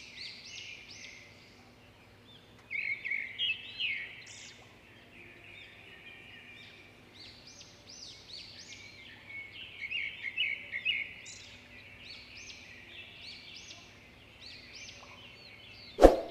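Many birds calling and chirping in a busy chorus of short, quick high notes, louder in a couple of spells. A single sharp knock near the end.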